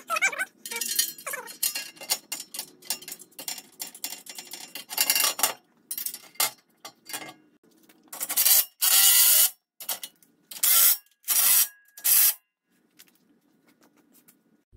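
Metal skid plate being handled into place under a vehicle with clattering and scraping, then a cordless power driver running its mounting bolts in: one longer run followed by three short bursts.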